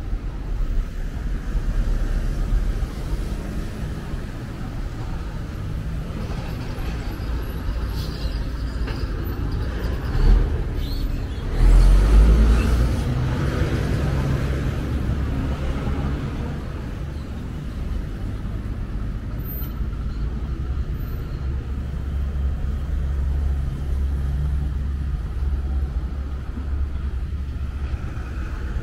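Street traffic: cars driving past over a steady low rumble, with one louder vehicle going by about twelve seconds in.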